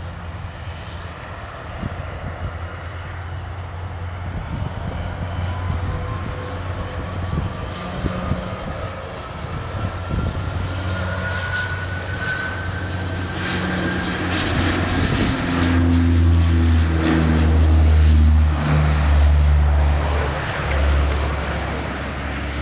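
Dash 8-200's twin Pratt & Whitney Canada PW123 turboprops at takeoff power during the takeoff roll and lift-off. A deep propeller drone with a whine slowly rising in pitch grows louder to a peak late on as the aircraft passes and climbs, then eases off near the end.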